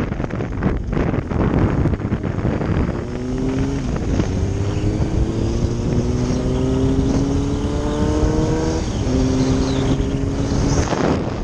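Motorcycle engine accelerating through the gears: its pitch climbs, drops at a shift about four seconds in, climbs again and drops at another shift about nine seconds in, then holds steady. Steady wind noise on the microphone runs under it.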